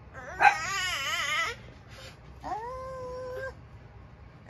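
Baby vocalizing: a loud, wavering wail lasting just over a second, then about a second later a steadier, quieter drawn-out 'aaah'.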